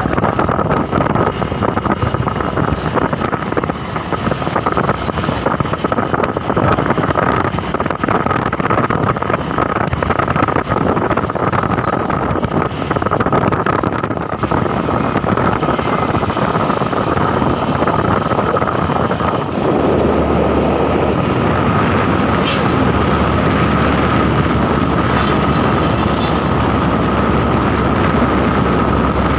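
Hino refrigerated truck on the move: steady engine and road noise with wind buffeting, and a constant high whine running through it. The low rumble grows heavier about two-thirds of the way in.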